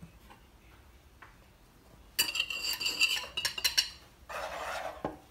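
Kitchen utensils clinking as flour is tipped from a ceramic bowl into a wooden mixing bowl and a wire whisk is put into it: about two seconds in, a quick run of ringing clinks of the metal whisk and the ceramic bowl, then a brief soft scraping near the end.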